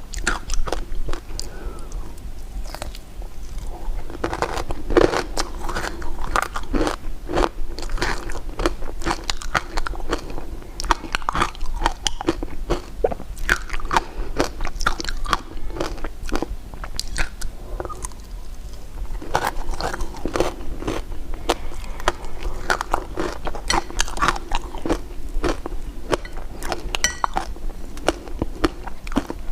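Close-miked eating of sweets: someone biting and chewing candy, with dense, irregular crunchy clicks and a short lull about two-thirds of the way through.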